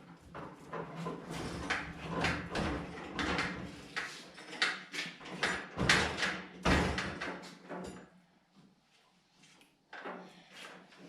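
Rolling metal tool cart with a heavy toolbox on top being moved and positioned, with repeated knocks and rattles that stop about eight seconds in, and a few more knocks near the end.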